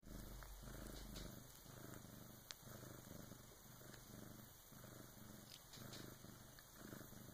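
Bengal cat purring faintly and steadily, the purr pulsing with each breath a little more than once a second. A small click is heard about two and a half seconds in.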